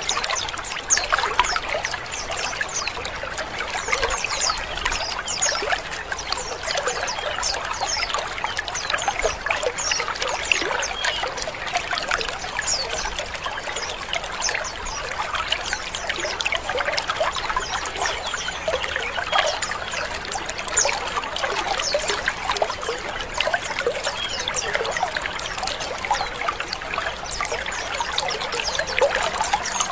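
A colony of many white-eyes (pleci) chattering together in a dense, continuous stream of quick, overlapping chirps and harsh 'ngrik' calls.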